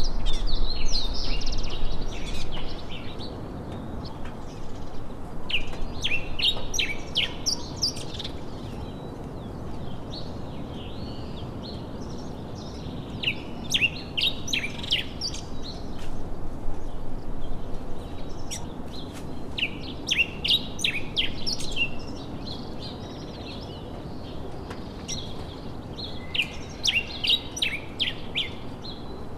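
Wild birds singing in bursts of quick, high chirping phrases every few seconds, over a steady low background noise. A louder low rumble fills the first couple of seconds.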